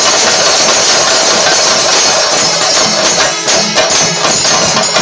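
Chenda melam: a large ensemble of chenda drums beaten with sticks, with metal cymbals hissing over them, playing a dense, continuous roll. About three seconds in, the roll opens into distinct, evenly spaced strokes.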